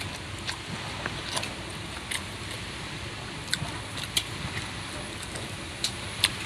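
Eating sounds: chewing and mouth smacks, with scattered short, sharp clicks roughly every second over a steady low hiss.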